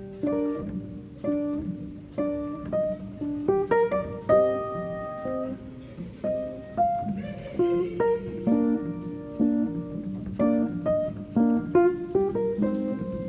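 Background music: a plucked guitar melody with clear, evenly paced notes, with some piano.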